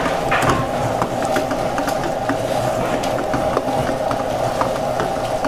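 Mutton frying in a pan with black masala and being stirred: scattered short scrapes and clicks over a steady hum.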